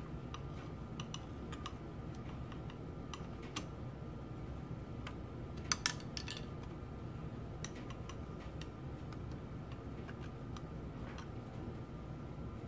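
Faint metallic clicks and ticks of a long screwdriver shaft knocking against the steel parts of a Linotype knife block as it works a hard-to-reach screw, with a louder double click about six seconds in, over a steady low hum.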